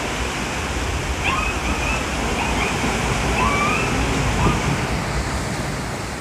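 Storm-surge seawater surging and churning through a flooded yard and around a ruined house: a steady loud rush of breaking, sloshing surf. Faint distant voices call out about one to four seconds in, and the sound begins to fade near the end.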